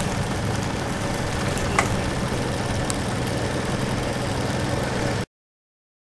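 Vintage tractor engine running steadily, with a brief high chirp about two seconds in; the sound cuts out abruptly to silence about five seconds in.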